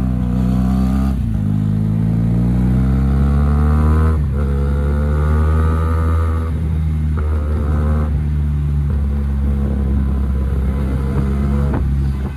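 Motorcycle with a raw, unmuffled exhaust pulling through the gears: engine pitch rising, dropping at upshifts about one and four seconds in, then holding steady revs at cruise before the throttle eases off near the end.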